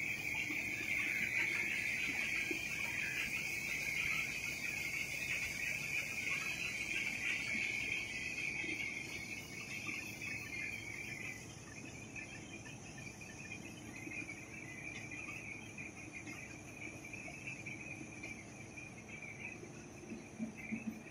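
Rotogravure printing press running: a steady, high-pitched hiss and whir over a low hum, growing quieter after about eight to ten seconds.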